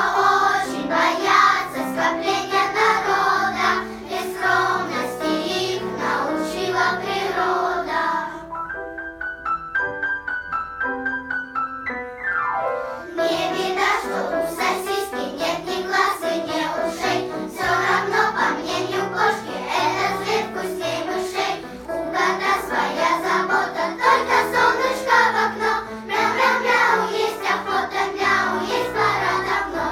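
Children's choir singing with piano accompaniment. The voices drop out about a third of the way in for a short piano interlude that ends in a quick rising run, then the choir comes back in.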